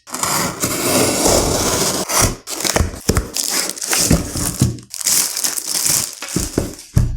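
Product packaging being handled and torn open: a loud, continuous crinkling and rustling of plastic and card with sharp crackles, cutting off suddenly near the end.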